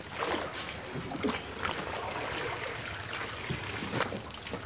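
Pool water sloshing and trickling around a cardboard box boat as it is set on the water, with a few light knocks as it is handled.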